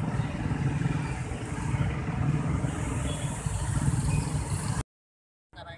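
Rumbling traffic noise at a railway level crossing: a passing passenger train and many motorcycle engines running. It cuts off abruptly to silence near the end.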